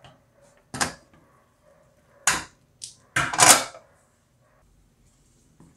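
Steel pressure cooker lid being twisted loose and lifted off the pot: a series of metal clanks and scrapes, the last and loudest lasting about half a second.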